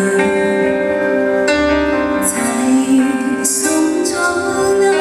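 A woman singing a Chinese pop song live into a handheld microphone over instrumental backing, with two bright high splashes in the accompaniment partway through.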